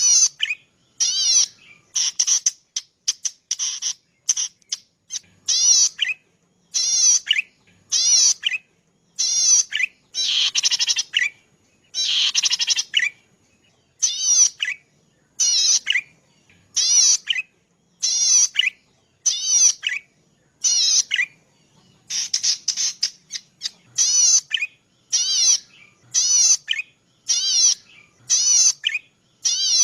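Cici padi, a small paddy-field warbler, singing a series of short, buzzy, rapidly trilled phrases, about one a second with brief pauses between them.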